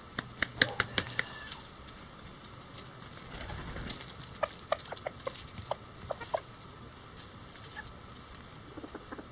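Bantam chickens pecking at a hanging corn cob: a quick run of sharp taps in the first second or so, then another scattered run of taps a few seconds in.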